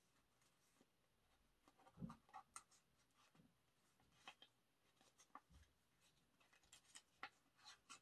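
Faint rustling and light clicks of a photobook's pages and sleeves being handled and turned by hand, with a soft low thump about two seconds in and another past the middle.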